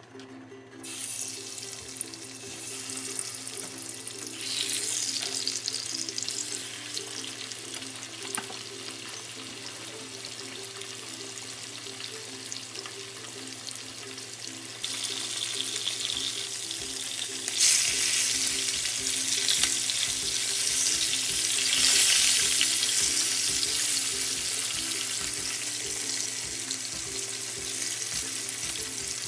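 Pieces of rupchanda (silver pomfret) shallow-frying in hot oil in a nonstick frying pan, a steady sizzle. It starts about a second in and gets louder in steps about 15 and 18 seconds in.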